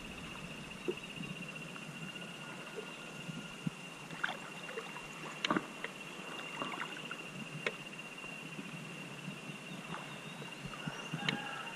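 River water lapping and trickling close around a floating inner tube and a water-level camera, with scattered small splashes and drips. A steady high-pitched tone runs underneath throughout.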